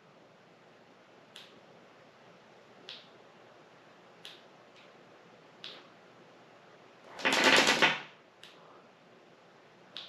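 Baofeng handheld radio on test with an improvised antenna: faint sharp clicks about every one and a half seconds, then about seven seconds in a loud hiss of static from its speaker lasting about a second.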